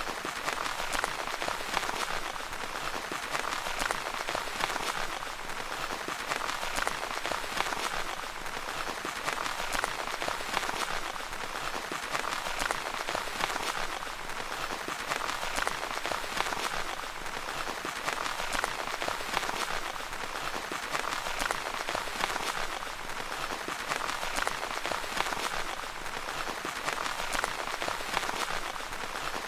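Steady rain pattering on tent fabric: a dense, even hiss of countless small drop ticks.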